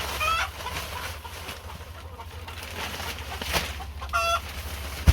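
A chicken calls twice, two short pitched squawks about four seconds apart, over a steady low hum.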